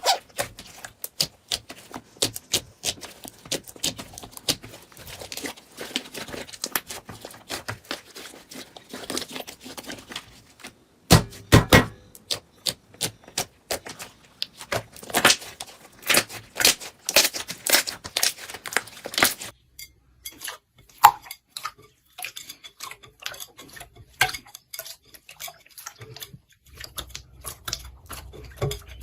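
Slime being squeezed and worked by hand, giving a dense run of small sticky clicks and pops that thins out to sparser pops about two-thirds of the way through.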